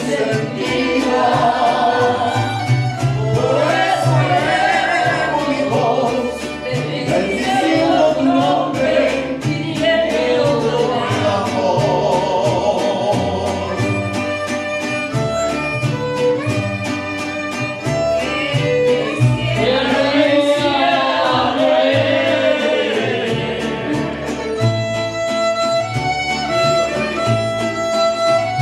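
Mariachi band playing a song: voices singing over violins and a rhythmic bass line. Near the end the singing stops and the violins carry an instrumental passage of held notes.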